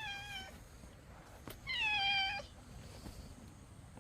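Cat meowing: a high, slightly falling meow trails off at the start, and one more short meow comes about two seconds in.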